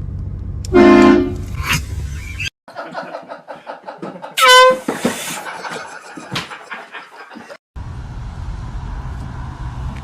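Handheld air horn blasts: a loud, short horn blast about a second in and another about four and a half seconds in. Scattered knocks and rustling follow the second blast, and a steady low hum runs under the first part.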